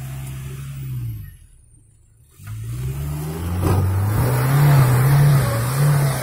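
Off-road 4x4's engine running steadily, dropping away for about a second, then revving up hard and straining with a wavering pitch as it tries to climb a steep step on the hill, with a rush of noise joining in about halfway through.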